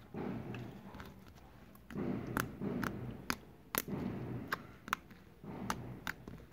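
Slime being squeezed and worked by hand in short repeated bursts, with sharp little clicks and pops.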